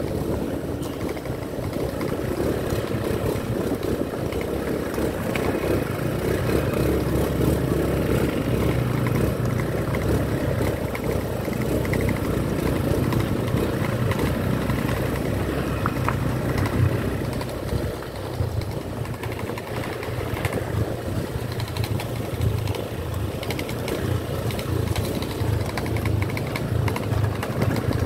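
Small motorbike engine running at low speed, ridden over a rough, bumpy lane, with a few sharp clicks and knocks along the way.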